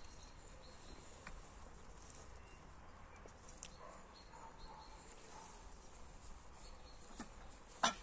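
Faint insect chirping, high and steady, with a few soft bird chirps. A single sharp click near the end.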